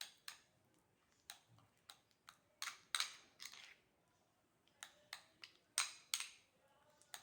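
A utensil clicking and scraping against a bowl as a thick paste of egg yolk, soft cheese and coffee is stirred and mashed. The strokes are faint and irregular, one or two a second, a few of them drawn out into short scrapes.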